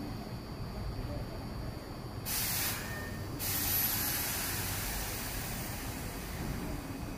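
A stationary Iyotetsu 3000 series electric train vents compressed air from its pneumatic system. About two seconds in comes a sharp hiss a little over a second long, then a softer hiss that fades over the following seconds, over the train's steady low background hum.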